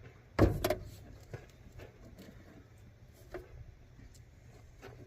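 A loud knock about half a second in, then faint, irregular dabbing and scraping as duct mastic is brushed onto the seams of a sheet-metal duct elbow to seal it against air leaks.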